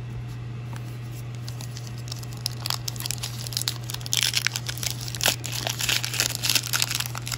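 Foil wrapper of a Topps Gypsy Queen baseball card pack being torn open and crumpled, a run of sharp crinkling and crackling that starts about two and a half seconds in and is loudest over the last three seconds.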